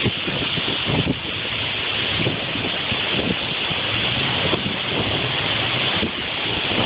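Steady loud rushing of wind, with gusts buffeting the microphone and some low rumbling in the middle.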